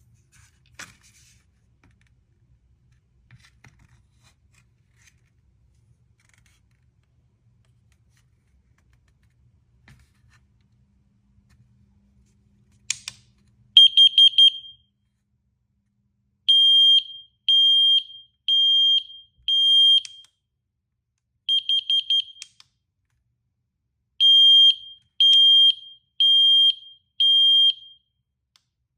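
Combination smoke and carbon monoxide alarm sounding its high-pitched alarm beep, after faint handling clicks and a sharp click. The beeps come in groups of four, alternating four quick short beeps with four longer beeps, and keep repeating.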